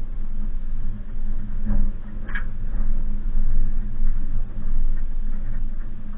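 Suzuki Jimny's engine running at low revs with a steady hum while the car crawls off-road, with scattered knocks and rattles from the body and suspension. A louder knock comes just under two seconds in, then a short squeak.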